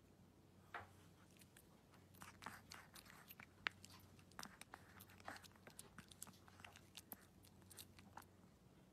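A Maltese puppy chewing a treat: faint, irregular crunching and small clicks of the mouth, starting about two seconds in.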